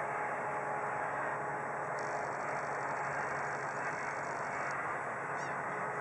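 Steady outdoor background rumble with a faint hum. From about two seconds in to near the end, a bicycle's rear freewheel ticks rapidly as the bike is pushed along. A short waterfowl call comes near the end.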